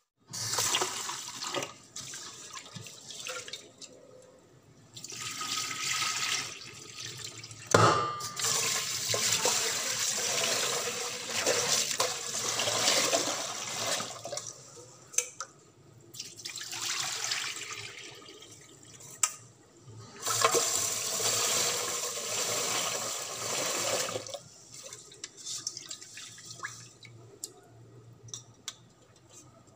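Tap water running into a pot of rice at a stainless steel sink as the rice is rinsed, the flow coming in spells of a few seconds with quieter gaps between. There is one sharp knock about eight seconds in. Near the end it turns quieter, with small clicks and splashes.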